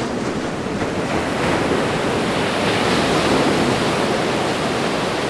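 Surf washing onto a sandy beach, with some wind: a steady rush of noise that swells a little midway.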